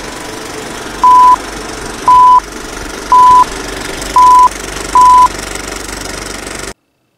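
Film-leader countdown sound effect: five short, loud beeps of one steady pitch, about a second apart, over the steady clatter and hiss of a running film projector. Everything cuts off abruptly near the end.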